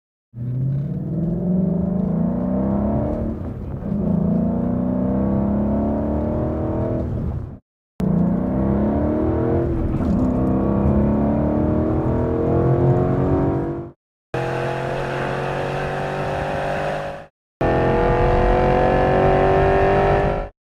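Ford Mustang GT's 5.0-litre V8 through a Borla ATAK exhaust, heard in several separate clips cut together. In most of them the exhaust note climbs in pitch under hard acceleration, with a drop at an upshift about three and a half seconds in. In one short clip it holds a steady pitch.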